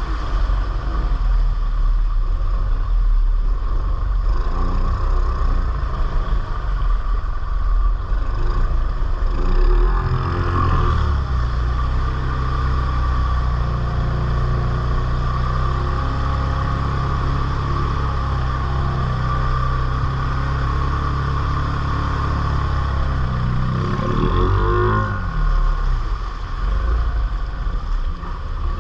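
ATV engine running under throttle. Its pitch climbs about ten seconds in, holds steady, then revs up and drops back around twenty-five seconds in.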